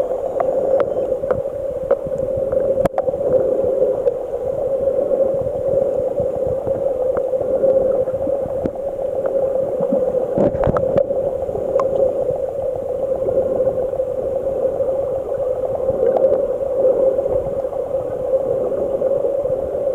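Underwater sound picked up by a submerged camera: a steady, muffled drone with scattered small clicks and a brief louder disturbance about halfway through.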